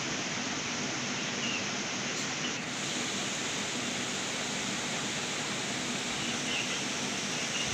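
Water pouring over a low concrete weir and churning white in the shallow pool below: a steady rushing noise.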